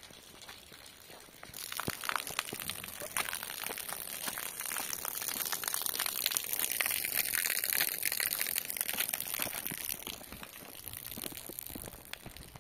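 Footsteps crunching and crackling through snow and icy slush: a dense run of small crunches that starts about a second and a half in and eases off near the end.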